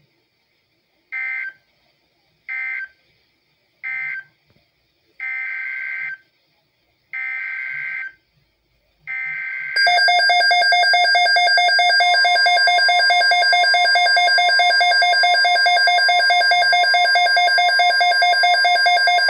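Midland S.A.M.E. weather alert radio sending six short bursts of screechy digital data tone: three brief, then three longer ones of about a second each. About ten seconds in, the radio's own alert alarm goes off, a loud, steady, pulsing electronic tone, with a lower steady warning tone joining underneath a couple of seconds later, signalling an incoming alert.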